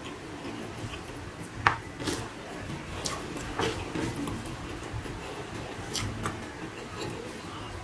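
A man eating rice by hand: chewing and wet mouth smacks with scattered short, sharp clicks, the loudest about a second and a half in.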